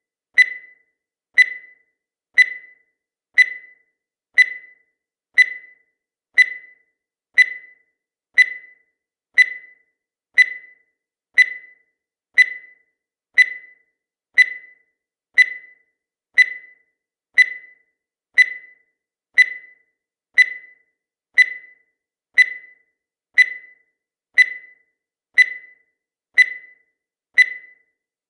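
Countdown timer sound effect: a short, high blip once every second, each dying away quickly, marking off the seconds.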